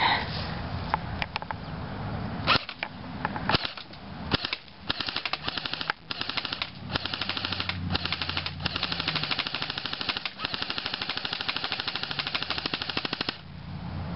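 Airsoft rifle firing: a few single shots, then from about four seconds in, long full-automatic bursts of rapid, evenly spaced clicking shots with brief pauses between them, stopping about a second before the end.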